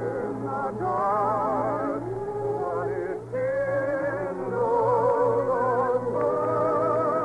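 Orchestral music from an old radio broadcast, with a wavering, vibrato melody line, possibly sung, that settles into long held notes about six seconds in. The sound is limited to the low and middle range, with a steady low hum underneath.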